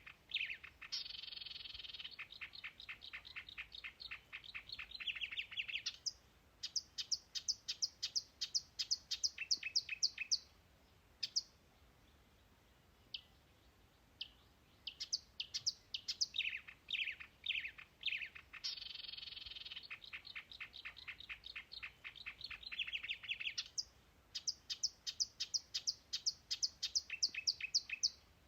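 A songbird singing: a few falling whistled notes, a long rapid trill, then a string of quick high notes. After a pause of a few seconds, the whole phrase comes again about halfway through.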